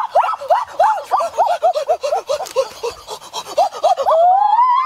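A dog whimpering and yelping in a rapid string of short high-pitched cries, four or five a second, then one longer drawn-out whine near the end.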